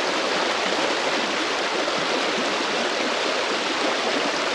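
Steady rush of river water running through a shallow riffle.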